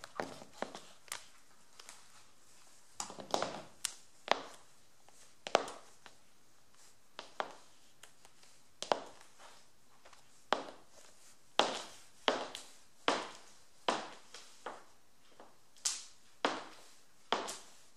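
Black patent-leather stiletto high heels clicking on a wooden floor in slow, uneven steps. Each heel strike is a sharp click with a short ring after it, and the steps come closer together in the second half.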